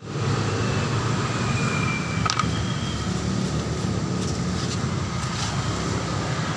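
Coffee press machine running with a steady low hum and rumble, a faint whine above it, and one sharp click a little over two seconds in.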